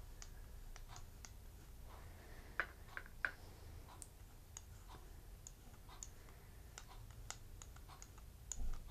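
Faint, irregular small clicks and ticks from an edge roller pen being rolled along a leather edge while applying edge paint, with two sharper clicks about two and a half and three seconds in.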